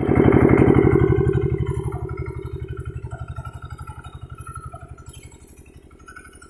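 A boat engine running with a rapid, even pulse, loud at first and fading steadily over the seconds.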